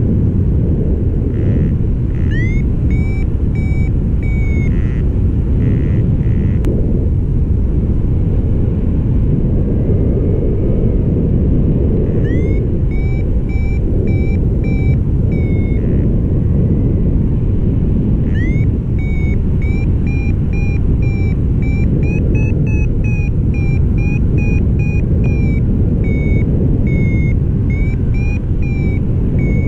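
Wind rushing over the microphone in flight, with a paragliding variometer beeping in runs of short high tones, each run opening with a rising chirp. The longest run comes in the last third, slightly higher in pitch in its middle. It is the vario's climb tone, the sign of the glider rising in a thermal.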